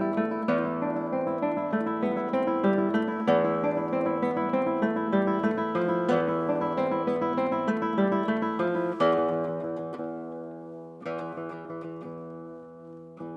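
Solo nylon-string classical guitar, fingerpicked: a quick stream of plucked notes, then about nine seconds in a stronger chord that is left to ring and die away, with a few single notes after.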